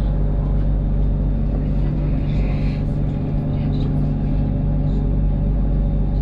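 Inside a BTS Skytrain car on the move: a steady low rumble with a steady electric hum running through it.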